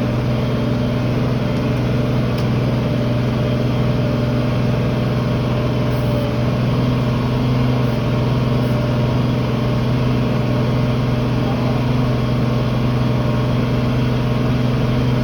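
Tractor engine running steadily under load while pulling a field cultivator through the soil, a constant, even drone.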